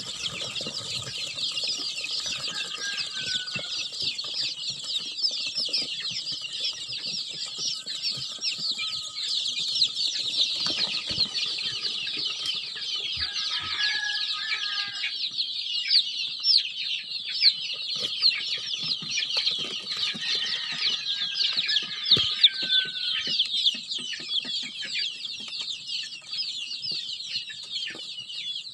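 A brood of four-day-old Dominant CZ chicks peeping without pause, many high-pitched cheeps overlapping into a dense chorus, with a few lower, longer calls now and then.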